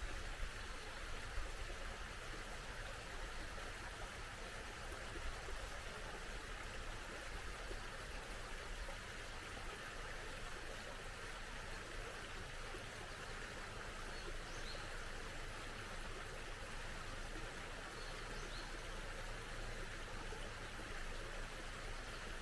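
A small stream running steadily, with a couple of faint, short bird chirps in the second half.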